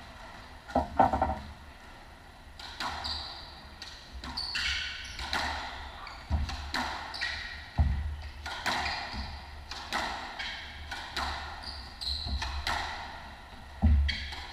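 Squash rally: the rubber ball cracking off racquets and the court walls about once a second, with a few heavier thuds, echoing in the court. Short high squeaks from the players' shoes on the hardwood floor sound between the hits.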